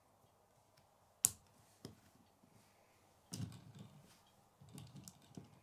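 K'nex plastic parts clicking as a connector is pushed into a wheel hub: one sharp snap about a second in and a lighter click shortly after, then soft plastic handling and scraping noise.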